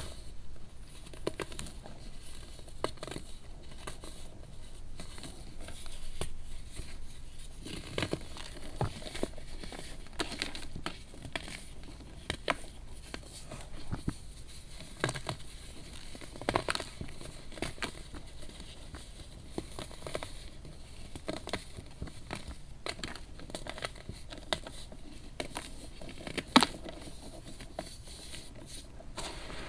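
Crunchy hardened baking soda being crushed and crumbled into powder. It makes many small, irregular crunches and crackles, with a few sharper, louder crunches scattered through.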